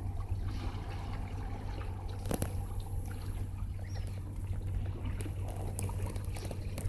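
Water lapping and trickling over a steady low rumble, with scattered small ticks and one sharp click about two and a half seconds in.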